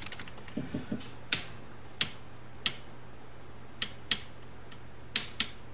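Torque wrench ratcheting on a crankcase bolt of a 1973 Honda CB750 engine: sharp single metal clicks, roughly one every half second to a second, as the bolt is worked toward its final 18 foot-pounds.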